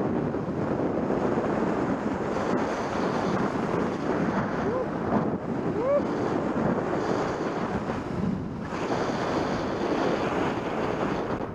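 Wind rushing over a helmet-mounted microphone while a Korua Shapes Pencil snowboard slides and carves down a snow slope, its base and edges hissing through the snow.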